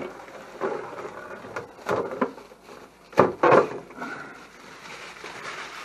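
Protective film being peeled off a painted polycarbonate RC truck body: irregular crackling rustles of thin plastic, with a couple of sharper snaps about three seconds in and softer rustling after.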